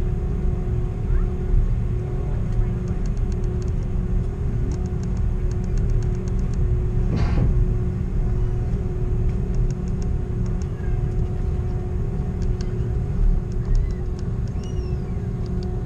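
Cabin noise of an Airbus A330 airliner taxiing: a steady low rumble with a constant hum from the engines and air system. Brief runs of faint rapid clicking come through, and there is a single short knock about seven seconds in.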